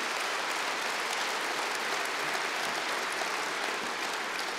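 Large concert-hall audience applauding steadily: a dense wash of many hands clapping together.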